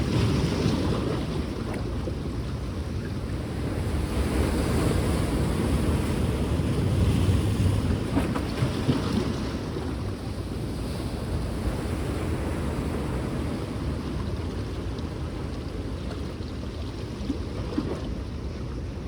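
Sea waves washing onto the shore, swelling louder a couple of times in the first half, with wind buffeting the microphone.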